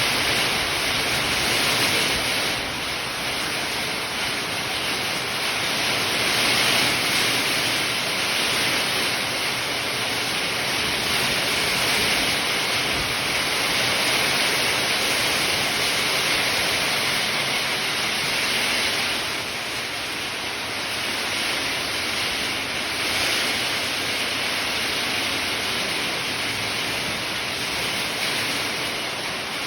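Strong wind rushing steadily, a continuous hiss that swells and eases a little in gusts.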